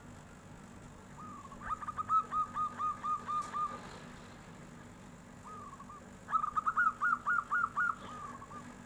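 Zebra dove (perkutut) singing: two phrases of quick, clear, flute-like cooing notes, each two to three seconds long, the second one a little higher in pitch.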